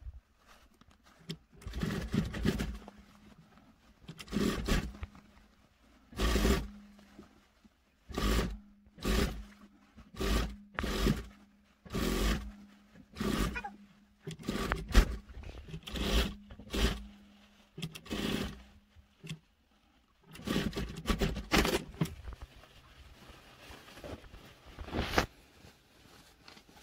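SunStar industrial sewing machine stitching in repeated short bursts of about a second each, with a steady motor hum between them, as pleats are topstitched flat along a skirt waistband. The bursts thin out near the end.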